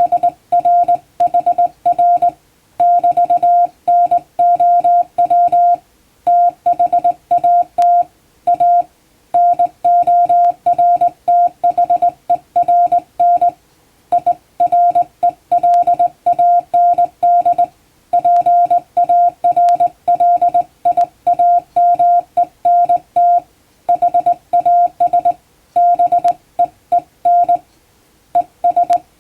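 Hand-keyed Morse code: a steady mid-pitched beep switched on and off in dots and dashes, sending English plain text, with short breaks between words.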